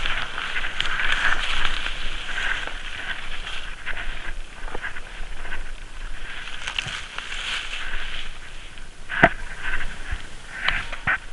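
Dry leaf litter and undergrowth crackling and rustling as a person moves through it, with one sharp click about nine seconds in.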